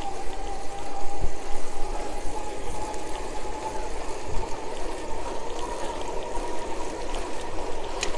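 An electric bicycle being ridden: steady rush of tyres and wind on the handlebar microphone, with a thin whine from the Alba 500 W kit's electric motor that rises slowly in pitch. A brief click comes near the end.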